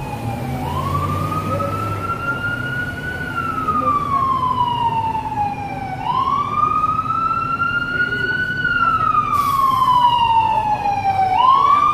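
Emergency vehicle siren in a slow wail, its pitch sweeping up and down about every five and a half seconds, growing louder toward the end.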